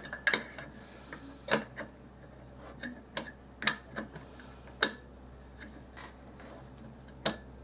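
Mossberg Maverick 88 shotgun parts handled during reassembly: the two side rods worked into the holes on the forend, giving a handful of scattered sharp clicks and taps of metal and plastic.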